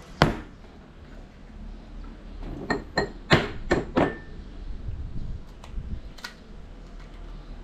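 Clinks and knocks of a small glass bowl being handled and set down on a wooden table: one just after the start, a quick run of about five between three and four seconds in, and a fainter one near six seconds.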